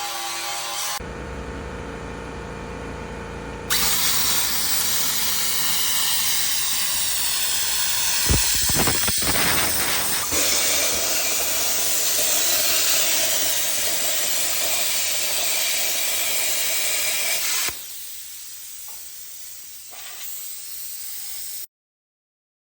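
A loud, steady hiss, like air or spray, running for about fourteen seconds after a short low hum; it drops much quieter near the end and then cuts off suddenly.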